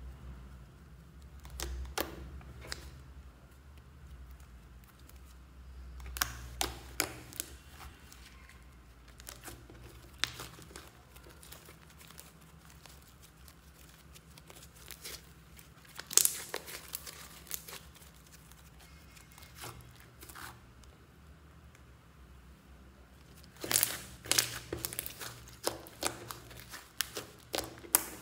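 Thick glossy slime being stretched, folded and poked by hand, giving off scattered sticky clicks and pops in clusters, thickest near the end.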